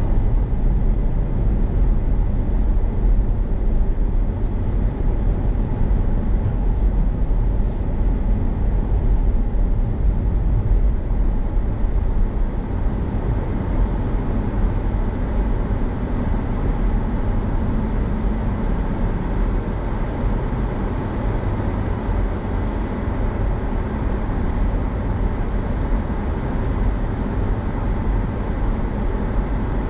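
Steady low road and tyre rumble heard inside the cabin of a Honda Civic e:HEV hybrid driving slowly in traffic. The petrol engine is barely audible, even in NORMAL mode.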